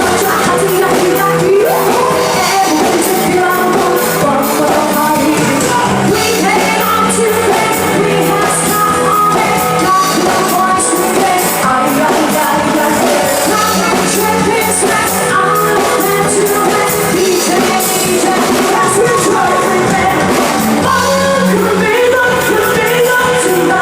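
Pop music with a lead vocal, played loud and steadily throughout.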